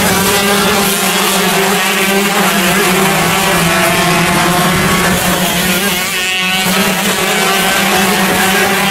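Several shifter kart engines racing around the track, their overlapping engine notes rising and falling as the karts accelerate out of and brake into the corners, with a steady low drone underneath.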